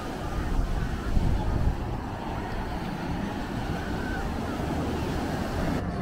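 Seaside wind buffeting the microphone over a steady wash of surf, gusting louder in the first two seconds, with faint distant voices. Music comes in just before the end.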